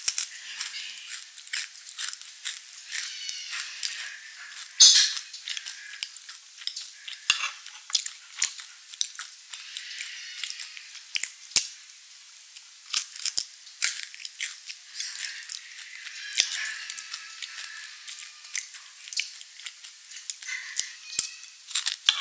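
Close-miked chewing and crunching of crunchy chocolate pillow cookies: many quick, irregular crackles, with one louder crunch about five seconds in.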